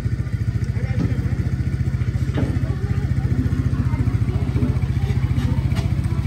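A motor engine running steadily with an even, fast low throb, with faint voices behind it.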